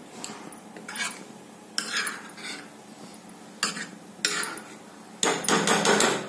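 Metal ladle stirring a thick curry gravy in a pan, scraping and knocking against the pan, with a quick run of strokes near the end.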